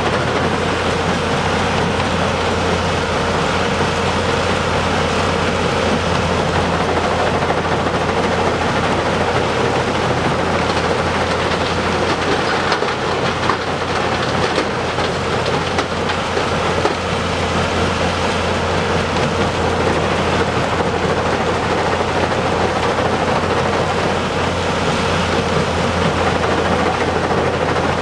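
Heavy diesel earthmoving machinery, a large excavator and dump truck, running steadily: a constant low engine drone with a dense rattling noise over it.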